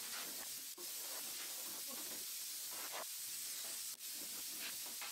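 Compressed-air blow gun hissing steadily as it blows dust off a bandsaw, with two brief breaks in the airflow.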